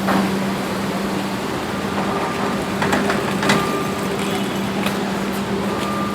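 Excavator's diesel engine running steadily at a constant pitch, with a couple of short metallic knocks about three seconds in.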